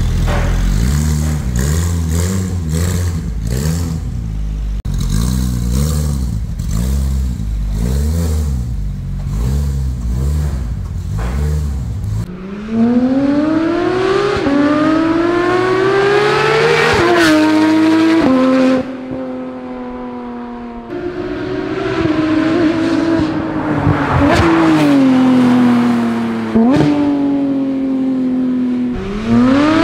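Porsche 911 GT3 RS's 4.0-litre naturally aspirated flat-six through an IPE titanium exhaust, valve open. It is first blipped repeatedly while standing, the revs rising and falling about once a second. From about twelve seconds in it accelerates hard on the road: the pitch climbs high and drops at each upshift, eases off for a couple of seconds, then climbs again.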